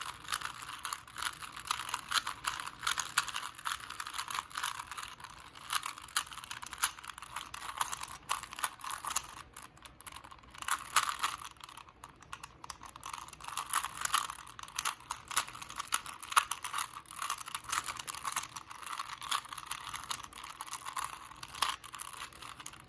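Rubik's cube being scrambled: rapid, irregular plastic clicking as its layers are twisted over and over.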